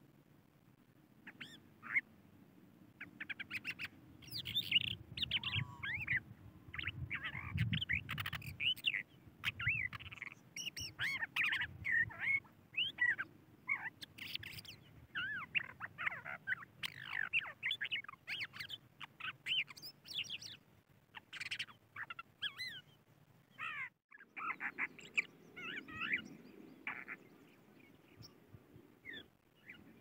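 Crested lark singing: a long run of quick, varied chirps and whistled trills, broken by a short pause about three-quarters of the way through.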